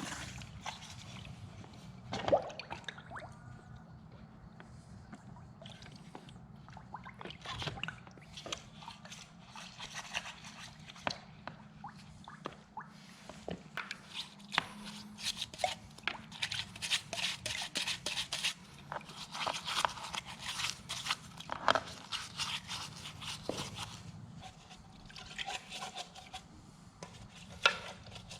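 Washing a bare Subaru EG33 flat-six engine case: irregular brush scrubbing and scraping with water dripping and splashing.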